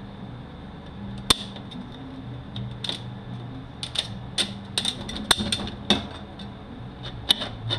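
Metal parts of a Mercedes 722.9 automatic transmission clinking and knocking as they are handled and set down during teardown, a dozen or so sharp clicks that come closer together in the second half. A steady low hum runs underneath.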